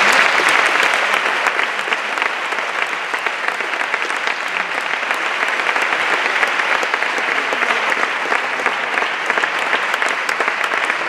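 Large audience applauding: dense, steady clapping, loudest at the start.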